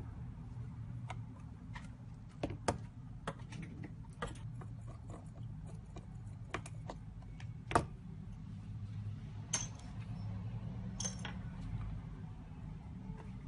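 Irregular light clicks and taps of small repair tools and parts being handled on an iPhone X's internals, the sharpest one a little past halfway, over a steady low hum.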